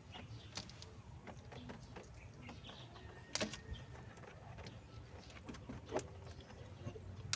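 Faint handling noises from work on car wiring and trim: scattered light clicks and rustles, with a sharper click about three and a half seconds in and another about six seconds in, over a low steady hum.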